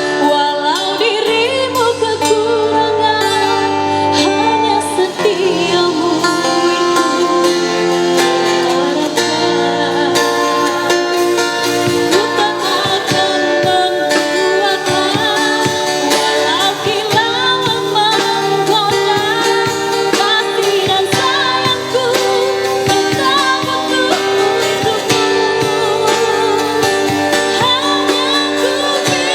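A woman singing a melody with live band accompaniment, strummed string instruments and bass keeping a steady rhythm under the voice.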